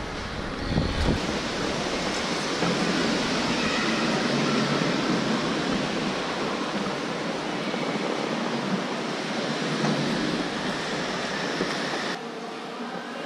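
Shopping-mall ambience: a steady wash of noise from a large indoor hall with no clear voices, turning abruptly quieter near the end.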